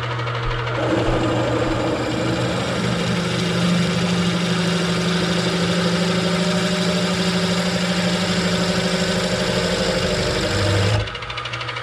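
A 27/64 in twist drill in a benchtop mill boring a balance hole into a steel two-stroke crank flywheel. The spindle motor hums steadily. About a second in the steady grinding noise of the cut starts, and near the end it stops as the bit comes out, leaving the motor running alone.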